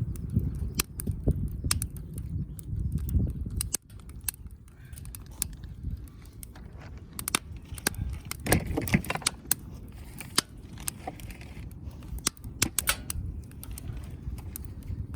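Wood fire crackling and popping in an open fire pit, with sharp irregular snaps throughout. A low rumble under it for the first few seconds cuts off suddenly.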